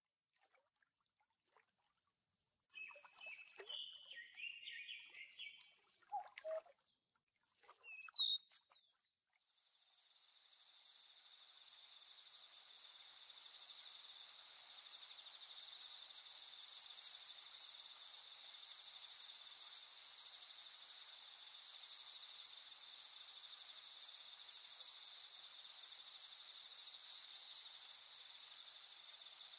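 Birds chirping and calling in short, scattered phrases for about the first nine seconds, then a steady, high insect chorus fades in and holds.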